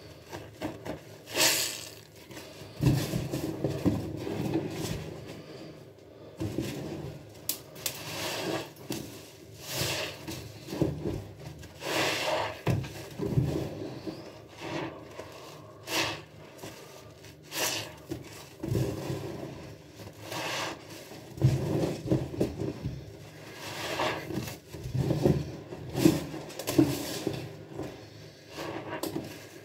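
Foam-soaked sponges loaded with soapy cleaner squeezed and wrung by gloved hands, giving repeated wet squelches and crackling foam in irregular bursts.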